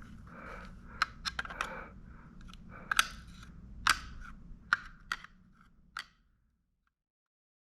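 A series of sharp clicks and snaps with soft scraping between them as the parts of a Seagate external hard drive are pried and handled during disassembly. The sounds stop abruptly about six seconds in.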